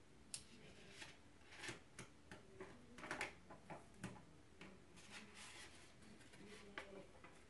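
Faint rustling and crinkling of a sheet of paper being lifted off wet blood drops and handled, with a few short, sharp clicks; the loudest rustles come about three to four seconds in.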